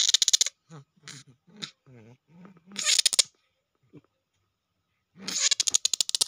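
Slow loris in a wire cage giving three rasping hisses, each under about a second, with faint low growls between them: a defensive threat at being touched.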